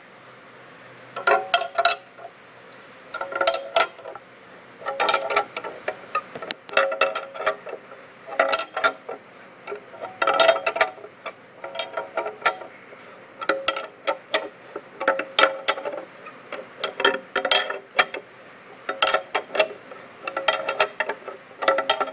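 Ratchet wrench clicking in short metallic bursts about once a second as it turns the nut on a threaded-rod puller, drawing a stuck cylinder sleeve up out of a Farmall Super C engine block. The sleeve has broken loose and is coming up.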